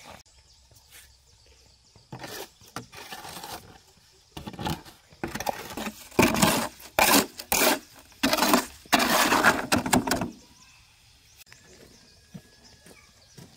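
Metal shovel scraping and scooping wet mortar in a metal wheelbarrow: about half a dozen loud rasping strokes that start a few seconds in and stop a few seconds before the end, with fainter scrapes before them.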